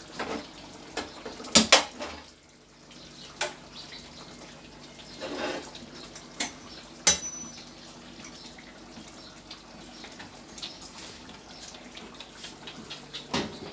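Iron tawa griddle and metal kitchenware on a gas stove clanking: a few sharp knocks and clinks, the loudest pair about one and a half seconds in and another near the end, over a faint steady hum.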